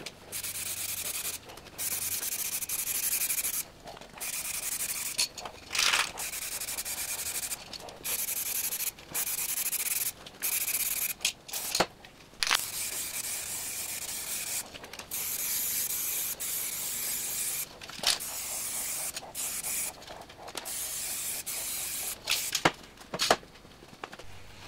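Aerosol spray can hissing in a long series of bursts, each one to two seconds long, laying coats of paint onto freshly primed steel brake drums. Short gaps and a few sharp clicks fall between the bursts.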